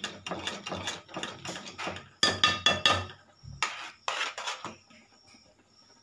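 Metal ladle clinking and scraping against a steel pot while mashing cooked moong dal, with a run of sharper, ringing clanks about two seconds in. A dull thud and a short scrape follow around four seconds, then it goes quiet.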